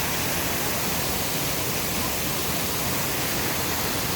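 Steady rushing of water from the Kuang Si waterfall's cascades.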